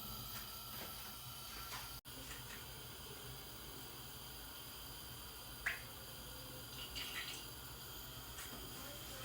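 Quiet steady background hiss with a few faint clicks and light knocks, one sharper click a little past halfway.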